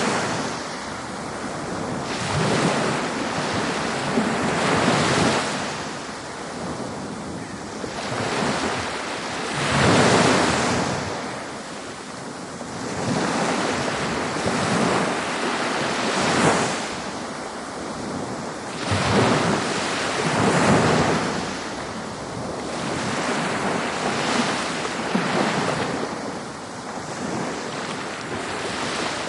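Ocean waves breaking on a beach, a steady wash of surf that swells and falls back every few seconds, with some wind noise on the microphone.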